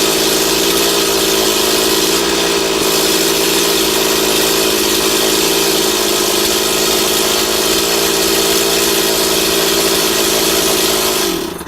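STIHL MS 260 two-stroke chainsaw engine running steadily, then shutting off near the end, its pitch dropping as it dies.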